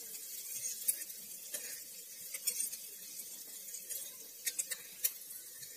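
Chopped onion, garlic, curry leaves and green chillies sizzling in hot oil in a steel kadhai, frying until the onions brown. A steel spatula stirring them gives several short scrapes and clicks against the pan.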